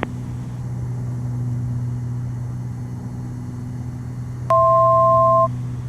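Twin Continental IO-550 engines of a Beechcraft G58 Baron droning steadily in the cockpit on final approach. About four and a half seconds in, a loud two-tone electronic beep from the cockpit sounds for about a second.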